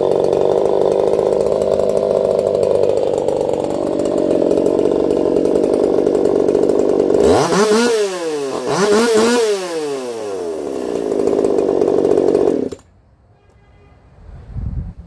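Modified Echo CS-4910 two-stroke chainsaw with a taper-top piston, running at high revs. About seven seconds in its pitch drops and climbs back up twice. It then holds wide open and cuts off abruptly near the end, followed by a low thump.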